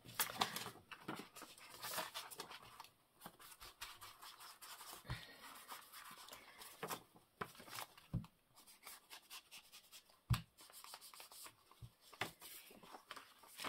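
Soft rustling and scattered light taps and clicks of paper and card being handled and pressed down during gluing.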